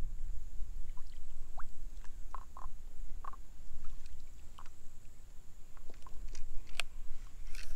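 Wind rumbling on the microphone, with scattered short high chirps from small animals and a few sharp clicks near the end.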